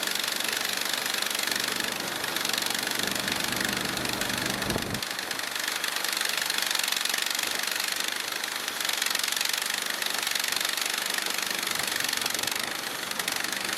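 Small gas engine of a portable band sawmill running steadily, with a brief low rumble a few seconds in.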